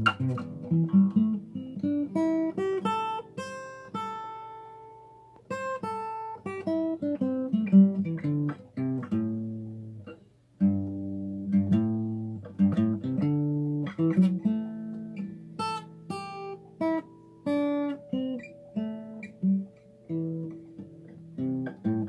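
Acoustic guitar played one note at a time, picking A minor pentatonic scale runs up and down the neck. There is a short break about ten and a half seconds in before the runs start again.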